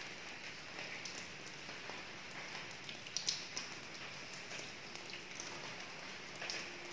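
Steady rain falling, with scattered drips and splashes; a few sharper drops stand out about three seconds in and again near the end.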